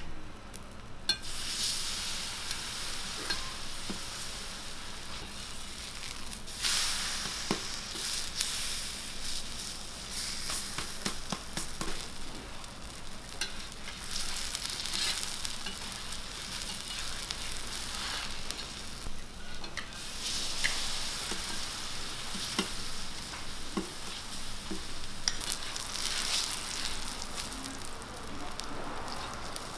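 Chive pancakes (buchujeon) sizzling in oil on a round griddle. The sizzle starts about a second in and swells louder now and then, with scattered sharp clicks and scrapes from the metal spatula on the griddle.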